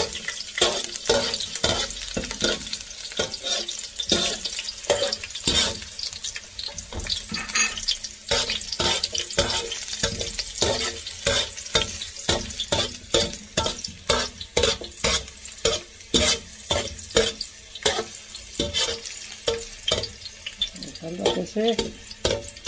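Chopped garlic frying gently in olive oil on low heat in an aluminium paella pan, a steady sizzle, while a wire spider skimmer scrapes and taps against the pan about twice a second as it stirs.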